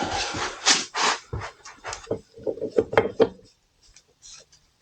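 Small brush scrubbing a motorcycle brake caliper and piston wet with brake fluid: a run of quick, rough strokes that speeds up to about five a second, then stops about three and a half seconds in.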